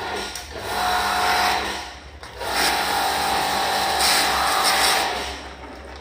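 Small high-pressure washer pump (jet cleaner) running in two bursts, a short one and then a longer one of about two and a half seconds, with a steady whine and hiss, as the spray gun is triggered to wash an air conditioner's evaporator.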